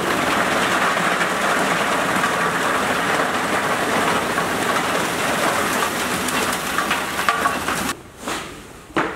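Chaff cutter chopping green fodder grass as it is fed in: a steady, loud clatter and rush of cut stalks. It stops about eight seconds in, leaving a quieter stretch with a sharp knock near the end.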